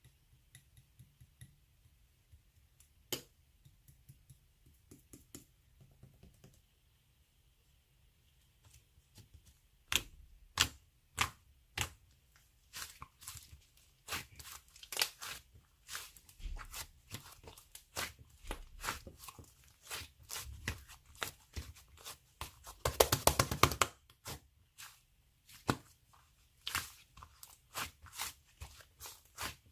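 Slime being squeezed and pressed by hand, giving sharp clicks and pops. They are sparse at first and then come thick and fast, with a dense run of crackling about two-thirds of the way through.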